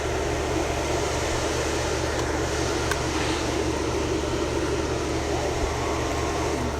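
A steady low mechanical hum with an even, repeating pulse in the bass.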